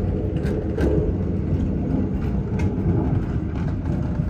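Outdoor street ambience: a steady low rumble of passing traffic, with a few faint clicks.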